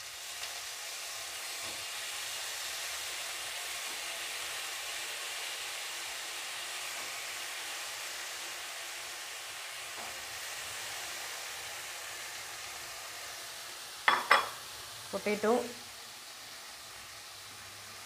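Diced raw potatoes and onions sizzling in hot oil in an aluminium kadai, stirred now and then with a wooden spatula. The sizzle is a steady hiss that eases off somewhat near the end.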